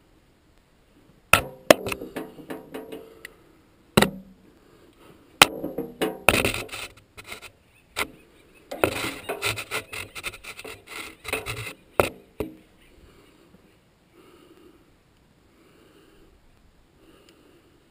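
Metal clinks, sharp knocks and scraping from hand tools and parts handled against the windmill's iron head, in irregular bursts for about eleven seconds before it goes quiet.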